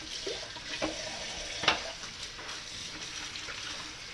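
Water running from a kitchen faucet into a stainless steel sink while a fillet knife is washed with soap under the stream, with one sharp knock about one and a half seconds in.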